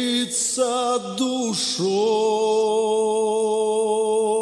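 Male solo voice singing a slow, chant-like line in Belarusian: a few short notes, then one long held note.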